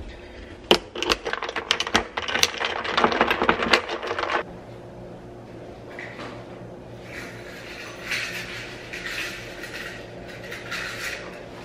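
Kitchen clatter of cups and utensils, many quick clicks and knocks for about four seconds, then a steady low hum of a small appliance running for the rest.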